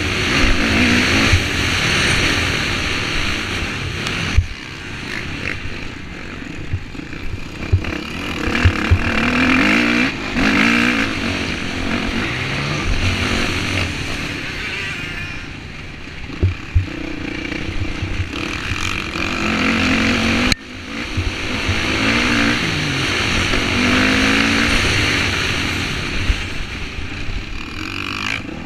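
Dirt bike engine heard from the rider's onboard camera, revving up and down over and over as the rider accelerates, shifts and backs off around the track, with a few sharp thumps.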